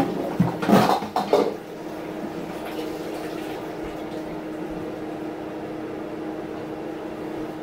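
Steady hum of a running kitchen appliance, with a few loud knocks and clatters in the first second and a half as things are handled.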